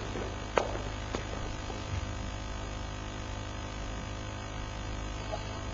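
Steady low electrical mains hum, with two sharp clicks about half a second and a second in.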